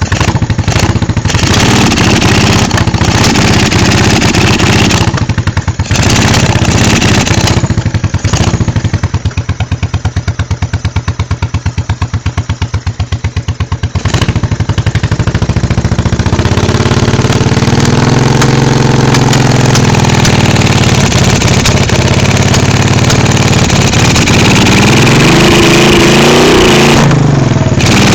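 1986 Honda Shadow 1100 V-twin engine running with its rear cylinder misfiring and blowing back through the carburetor. It is revved up and let fall back twice in the second half.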